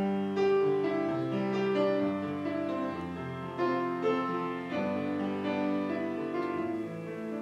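Slow piano music, with notes and chords held and ringing before the next ones come in.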